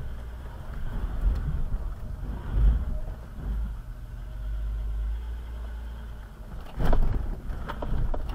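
Land Rover Discovery 4 crawling at walking pace over deep ruts, its engine making a low rumble heard from inside the cabin, with a few sharp knocks near the end as the body and suspension work over the uneven ground.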